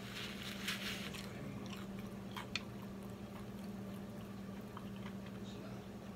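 Close chewing and mouth sounds of someone eating fried chicken, with a crunchy burst in the first second, then small clicks as fingers pull meat off the chicken, one sharp click about two and a half seconds in.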